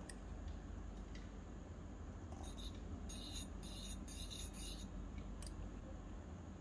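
A tiny metal spoon scraping across the bottom of a miniature iron kadai as oil is spread, in about five short scratchy strokes around the middle, with a light click near the start.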